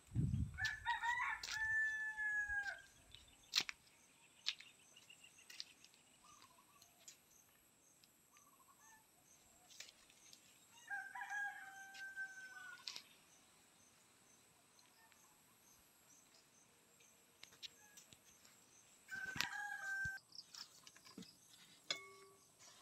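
Rooster crowing three times, the first two crows each about two seconds long and the last one shorter, with a few faint clicks between.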